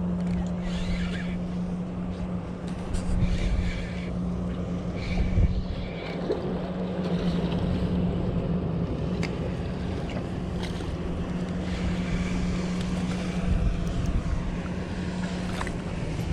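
Steady drone of a motorboat engine holding one pitch, with gusts of wind rumbling on the microphone.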